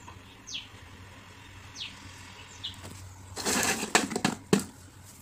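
Rustling and clattering of crisp fried dough biscuits being picked up by hand from a steel bowl, a loud burst with sharp clicks lasting about a second from about three and a half seconds in. Before it come three short, falling bird chirps over a faint steady hum.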